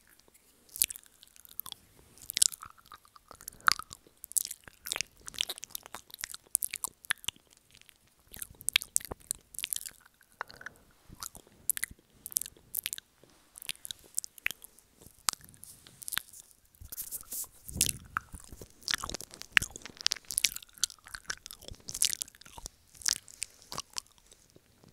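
Wet mouth sounds made right against a microphone, ear-eating style: irregular lip smacks, tongue clicks and wet sucking sounds, with a few fuller, duller thumps about two-thirds of the way through.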